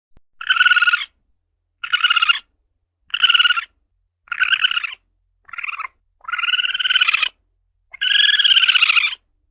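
Asian palm civet (luwak) calling: seven pitched calls in a row, about one a second, the last two longer than the rest.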